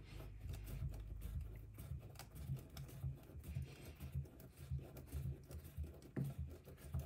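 Tapered body reamer twisted by hand into the plastic roof of a 1/18-scale RC truck body, cutting a small hole: faint, irregular scraping and clicking, with low handling knocks.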